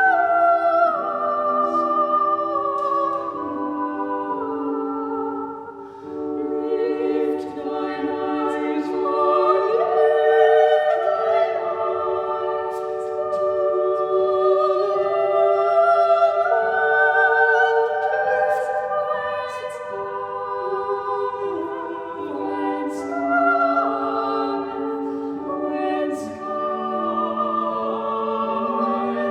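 Choir singing a slow piece in several-part harmony, with long held notes.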